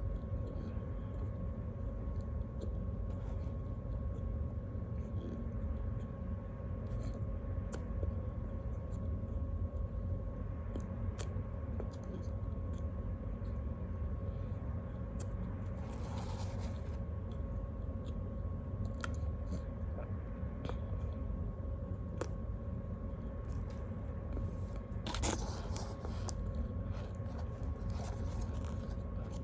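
A person eating a snack, with scattered crunches and chewing, over a steady low rumble and hum. Two brief louder rustling noises come about halfway through and again near the end.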